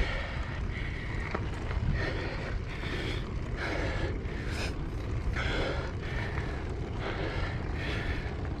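Wind rumble on the microphone from a moving mountain bike, with a rider's heavy rhythmic breathing, a breath about every two-thirds of a second.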